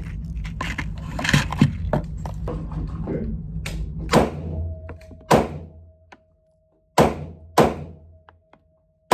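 Semi-automatic handgun fired on an indoor range: a string of about six single shots, irregularly spaced from half a second to a second and a half apart, each with a short echoing tail.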